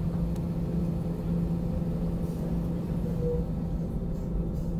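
Airbus A320 cabin noise while taxiing: a steady hum from the idling engines over a low rumble from the wheels on the taxiway.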